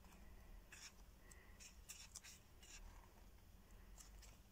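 Faint rustling of paper as the pages of a small softcover sketchbook are turned by hand: several short, soft swishes a few tenths of a second to a second apart.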